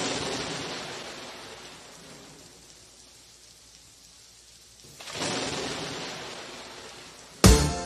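Rainstorm sound effect at the top of a record: a rushing swell of rain noise that fades over a few seconds, then a second one about five seconds later. Near the end the band cuts in with a loud drum hit and bass.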